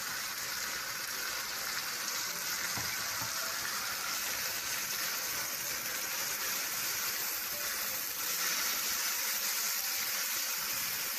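Tofu, onion and tomato with ground spices frying in a hot pan, sizzling steadily as the mixture is stirred.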